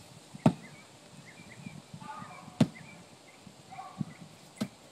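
A sledgehammer striking a tree stump: three heavy blows about two seconds apart, with a lighter knock just before the last.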